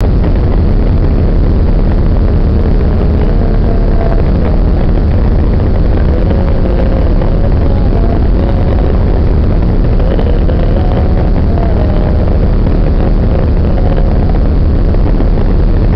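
Passenger boat under way: the steady, loud rumble of its engines mixed with the rush of the churning wake and wind, heard from the open deck.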